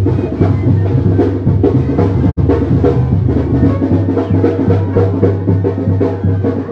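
Mexican street brass band (banda) playing as it marches, with a sousaphone bass line under the brass and a steady drum beat. The sound drops out for an instant about two seconds in.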